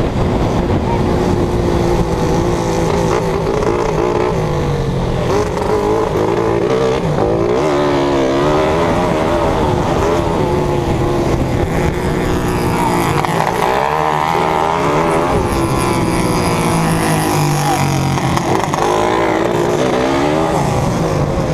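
Race car engine running hard, its pitch repeatedly climbing and dropping as it revs up and falls back, with a deeper drop about two-thirds of the way through.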